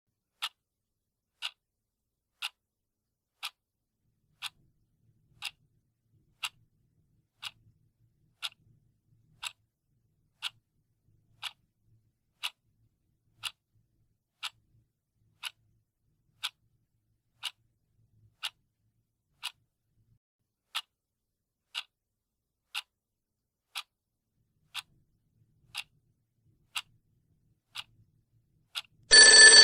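Clock ticking sound effect, one sharp tick every second. Near the end an old telephone bell starts ringing, much louder than the ticks, marking the end of the countdown.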